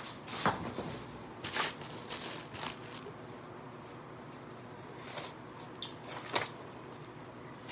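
Short, scattered rustling and crinkling handling noises, about six brief brushes of sound spread over several seconds, from gloved hands moving and handling materials.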